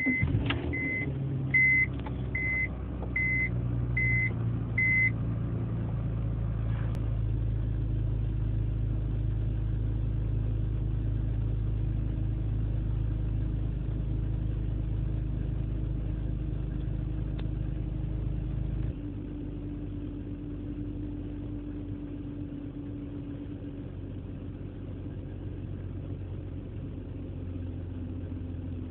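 BMW E46 engine running at idle just after a cold start, the condition in which the owner says it misfires. A dashboard chime beeps about seven times in the first five seconds, and about two-thirds of the way through the engine note changes and gets quieter.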